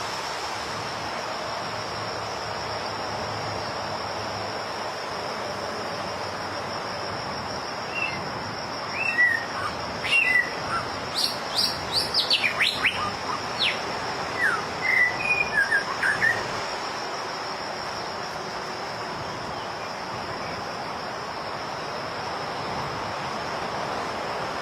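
White-rumped shama singing a run of varied clear whistles and sharp quick notes for about eight seconds, starting about a third of the way in, over a steady high-pitched insect drone.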